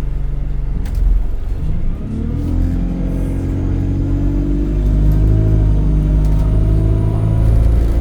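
ADL Enviro 200 single-deck bus heard from on board: the diesel engine runs steadily, then about two seconds in the bus pulls away and the engine note rises steadily as it accelerates.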